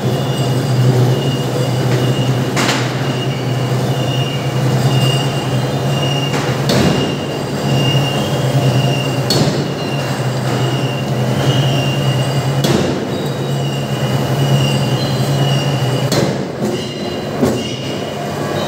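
Industrial forging hammer striking red-hot steel in its dies: single blows a few seconds apart, then several in quick succession near the end. Under the blows runs the steady drone of shop machinery with a high whine.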